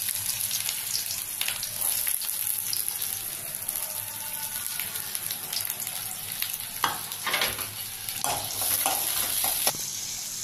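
Chopped shallots sizzling in hot sesame oil with mustard seeds in a kadai, a steady frying hiss. In the later seconds a metal ladle stirs them, scraping and knocking against the pan.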